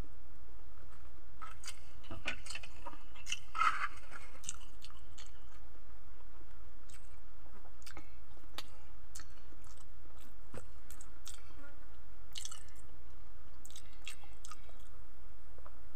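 A person chewing and biting soft boiled vegetables close to the microphone, with small wet mouth clicks scattered throughout. A steady low hum runs underneath.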